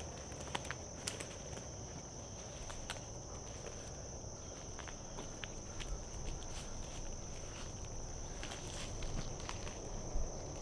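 Footsteps crunching through dry leaf litter on the forest floor, with scattered sharp twig and leaf snaps, over a steady high-pitched insect drone.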